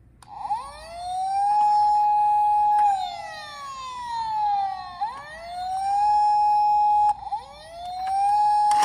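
Toy emergency-vehicle minicar's electronic siren wailing: the tone rises and holds steady, slides slowly down, rises and holds again, then cuts off suddenly about seven seconds in and starts rising once more.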